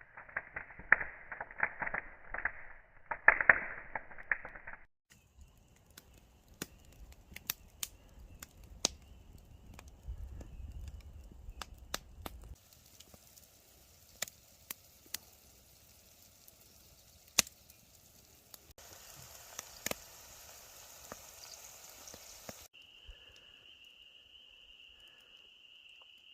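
Campfire cooking sounds cut together: a dense run of chopping strikes for the first few seconds, then a wood fire crackling with scattered sharp pops. Near the end there is a steady high tone.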